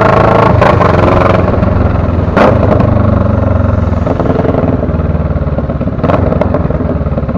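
Motorcycle engine running steadily, heard close, with a few brief knocks.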